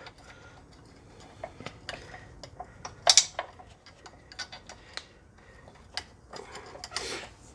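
Scattered light metallic clicks and taps of bolts and hardware being handled and spun in by hand on a wood chipper's blade mount, with a sharper clack about three seconds in.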